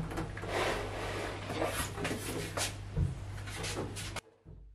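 Wooden interior door being lifted off its hinges: rubbing and light knocks of wood and metal hinge leaves as it is handled, with a dull thump about three seconds in. The sound cuts off abruptly just after four seconds.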